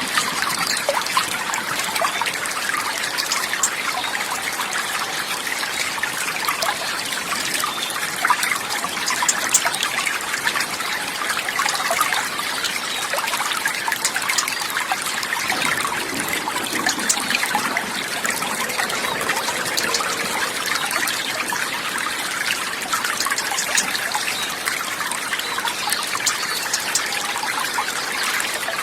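Water trickling and babbling steadily, like a small stream running over stones.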